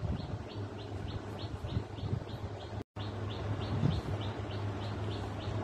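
A bird chirping over and over in a steady series, about three short high chirps a second, over a steady low hum. The sound cuts out for a moment a little past halfway.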